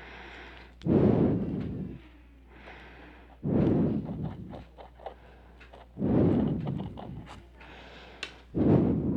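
Four heavy breaths or puffs of air blowing onto the microphone, about one every two and a half seconds, with a few faint clicks between them.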